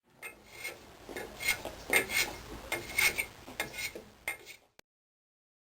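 A run of irregular scraping strokes of metal against metal, several of them louder with a light ring, cutting off suddenly near the end.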